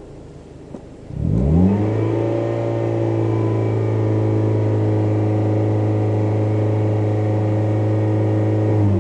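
2004–2007 Scion xB's 1.5-litre four-cylinder through a Tanabe Medalion Concept G stainless axle-back exhaust, idling quietly, then revved up quickly about a second in and held steady at a little over 3,000 rpm, dropping back near the end.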